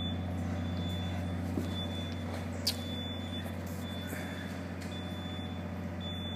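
A steady low machine hum, with a high electronic beep repeating at short, even intervals over it.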